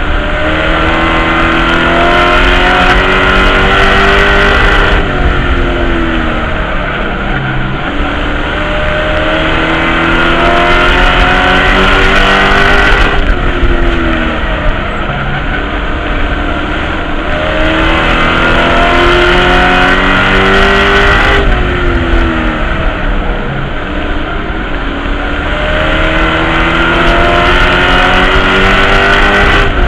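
Race truck engine heard from inside the cab at racing speed. Its pitch climbs for several seconds down each straight and drops off into the turns, one cycle about every eight seconds, four times over.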